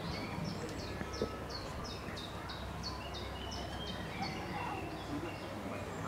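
A regular run of short, high chirps, each falling in pitch, about three a second, stopping a little over four seconds in, over steady outdoor background noise.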